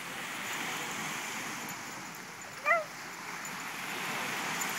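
A dog gives one short, high yelp about halfway through, over the steady wash of surf.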